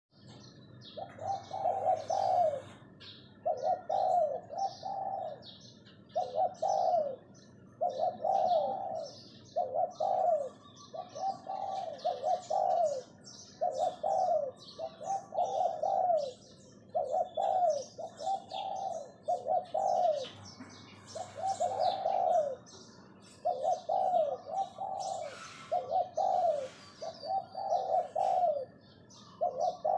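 Spotted dove used as a decoy, giving its 'phao phao' calling coo: short phrases of two or three low arched notes, repeated about every one and a half seconds. Small birds chirp in the background.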